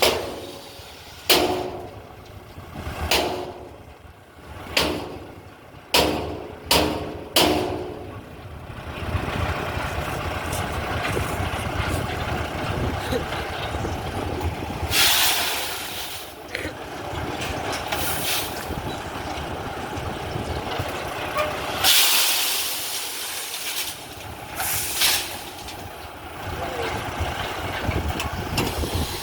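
Heavy diesel machinery: about seven sharp, ringing metallic knocks in the first eight seconds, then an engine running steadily with several short bursts of hiss.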